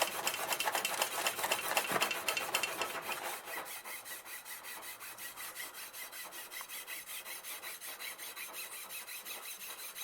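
Hand-polishing of a rusty 1960s Schwinn Corvette bicycle rim: fast, even rubbing strokes against the metal. The strokes turn softer about three and a half seconds in.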